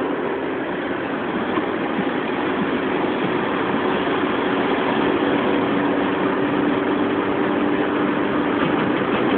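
Steady engine and road noise heard inside a car's cabin while driving at motorway speed, growing slightly louder.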